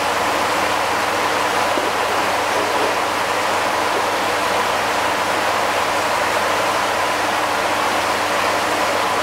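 Steady rush of running water in an indoor concrete koi pond, like pond water pouring in from a filter return, with a faint steady hum.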